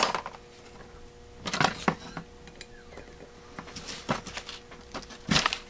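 Metal hand tools and carburetor parts clinking and knocking on a workbench as they are set down and picked up: scattered clicks in small clusters, with the loudest knock near the end, over a faint steady hum.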